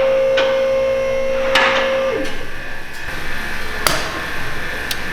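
Sharp knocks of tools striking a car being taken apart. A steady whining tone under them glides down and stops about two seconds in.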